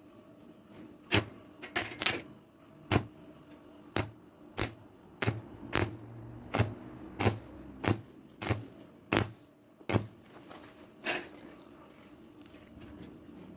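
A series of about fifteen sharp knocks or taps, roughly one every half second to second, then stopping about two seconds before the end.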